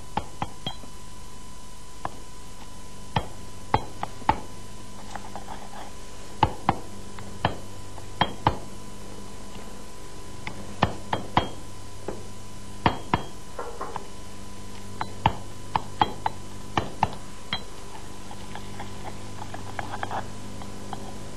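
Pestle crushing peeled garlic and boiled potato into a paste in a mortar: irregular sharp knocks as the pestle strikes the mortar, one or two a second, with quieter grinding between them. A steady faint hum runs underneath.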